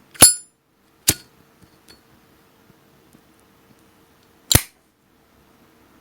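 Three sharp metallic clicks with a brief ring, a Zippo lighter's hinged lid snapping: two about a second apart, the third some three seconds later, over a faint steady hum.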